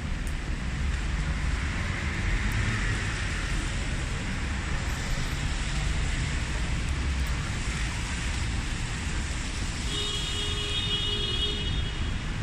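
City street traffic on wet roads: a steady low rumble of vehicles with a tyre hiss that swells as a vehicle passes a couple of seconds in. About ten seconds in, a brief high-pitched tone with layered pitches sounds for a second or so.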